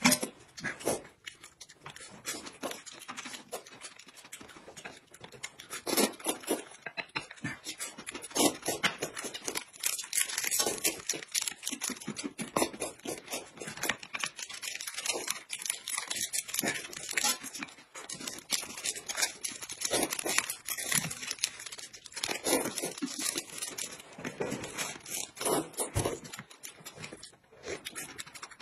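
Noodles slurped from a bowl in many irregular bursts, with chewing and the crinkle of plastic snack wrappers.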